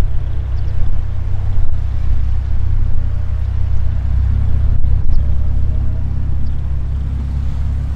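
Low, uneven rumble of wind buffeting the microphone, with a faint steady engine drone in the background from about three seconds in.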